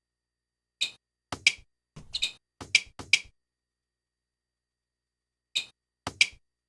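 Cartoon sound effects: a quick run of short, sharp taps in the first few seconds, then three more near the end, with dead silence between.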